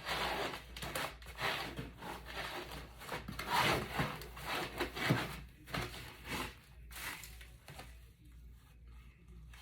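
Foam packing pieces being handled and pulled out: irregular rubbing and scraping, fainter in the last couple of seconds.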